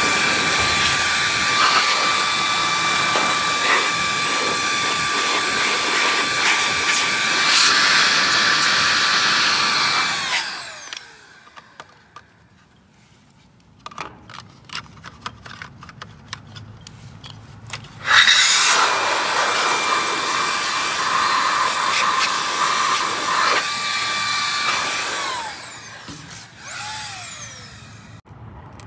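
A handheld electric power tool being used to clean dirt out of a sliding-gate motor, its motor running with a steady high whine. It is switched off about ten seconds in and winds down with a falling pitch, with a few light clicks and taps during the pause. It starts again, runs for about seven seconds, winds down, and gives one more short run near the end.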